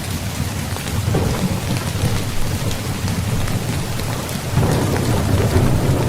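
Steady heavy rain with thunder rumbling low underneath. The rumble swells about a second in and grows louder again a little past four seconds.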